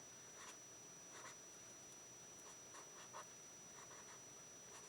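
Faint scratching of a pen drawing on paper in a few short strokes.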